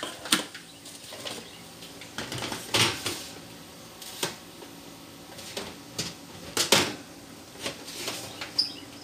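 Aluminium foil pans of bacon being handled on a metal oven rack: scattered clatters and scrapes, loudest about three seconds in and again near seven seconds.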